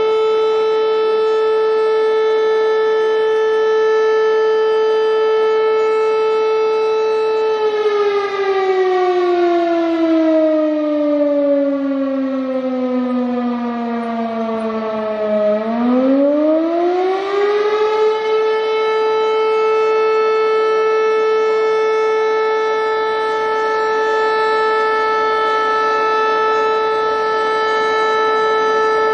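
Firehouse siren sounding one steady, sustained wail. About a quarter of the way in, its pitch sinks slowly for about eight seconds to roughly half. It then swings quickly back up within a couple of seconds and holds steady again.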